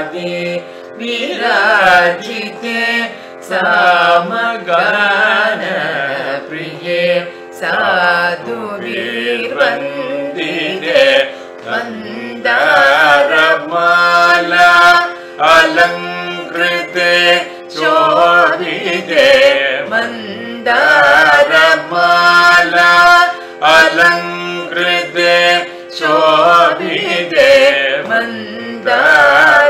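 Carnatic music in raga Hindolam: a heavily ornamented melody with wavering, sliding notes over a steady drone, in short phrases with brief pauses between them.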